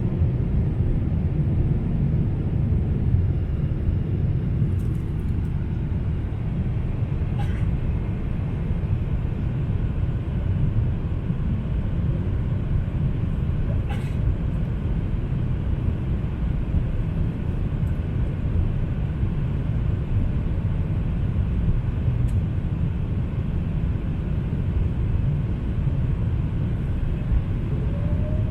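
Steady low rumble of a Boeing 777-300ER in flight or on the runway, heard from inside the passenger cabin, with a couple of faint clicks about a third and halfway through.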